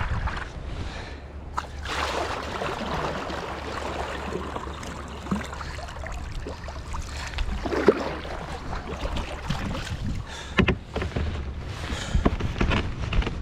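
Water splashing and lapping around a paddled kayak, with scattered knocks and a low wind rumble.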